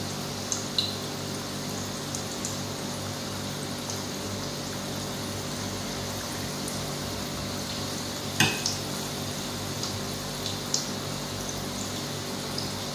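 Tuna fish balls deep-frying in hot oil in a stainless steel pot: a steady sizzle with scattered crackles and pops, the sharpest about eight seconds in.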